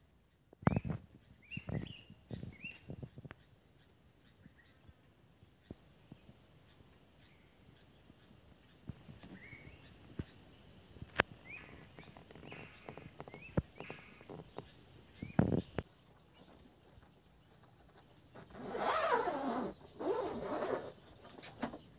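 Steady high-pitched insect drone with scattered short rising bird chirps and a few sharp clicks, cutting off abruptly about 16 s in. Then two stretches of rustling and scraping as a gear bag is handled on a wooden bench.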